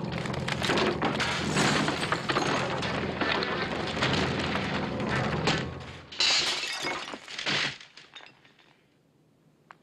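Glass shattering and debris crashing in a film fight scene, a long run of loud smashing. A fresh burst of shattering comes about six seconds in and dies away by eight seconds, leaving near quiet with a faint click near the end.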